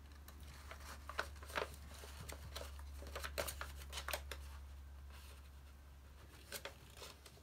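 Soft paper rustling and scattered light clicks as transfer paper is wrapped around a mug and smoothed down by hand, over a steady low hum.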